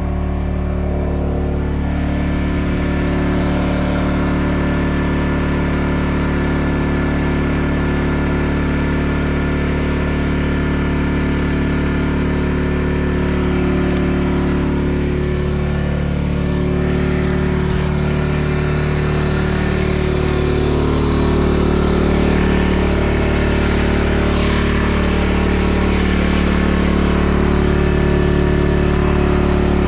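Snowblower engine running steadily under load, its pitch shifting slightly now and then, with a hiss that grows louder in the second half.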